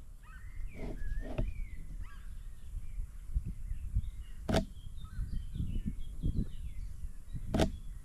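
Small birds chirping and warbling in short phrases over a steady low rumble, with two sharp clicks, about four and a half and seven and a half seconds in.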